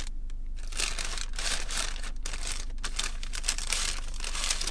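Paper takeout bag crinkling and rustling as a hand digs into it and handles the wrapped food inside. It starts a moment in, after a brief pause, and then runs as a near-continuous stream of crackles.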